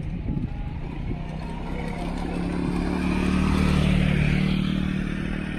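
Motor scooter riding past: its engine drone grows louder, is loudest about four seconds in, then fades as it goes by.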